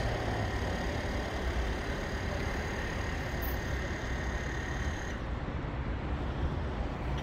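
Steady low rumble of a road vehicle, with faint high whining tones that stop about five seconds in.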